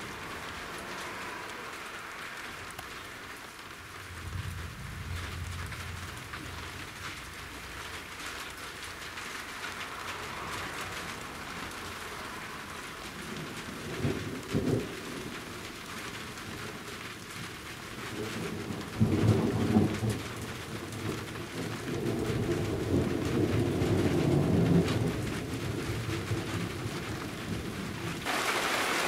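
Rain falling steadily with thunder rumbling repeatedly, a low roll about four seconds in, two short cracks in the middle, and the loudest, longest rolls in the last third.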